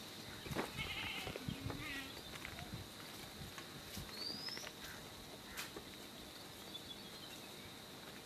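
Goats bleating briefly in the first couple of seconds, with a short rising bird chirp about four seconds in, against a faint steady high-pitched hum.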